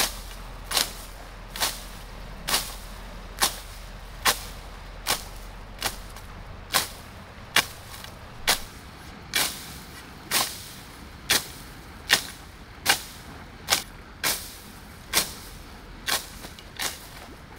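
A long pole swung again and again into tall grass, a sharp swish-and-slap a little more often than once a second in an even rhythm, some twenty strokes in a row.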